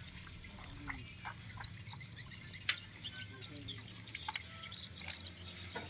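Quiet outdoor ambience: a steady low hum with faint distant voices, and a few short sharp clicks in the second half.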